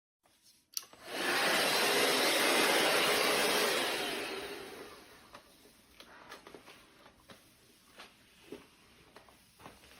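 Shark VacMop Pro cordless vacuum mop's suction motor switched on with a click, running steadily for about three seconds, then winding down and fading out. Light taps and clicks follow.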